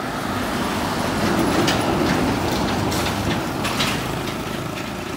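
Heavy fuel tanker truck passing close by on the road: engine and tyre noise swell to a peak a second or two in, then slowly fade as it goes past.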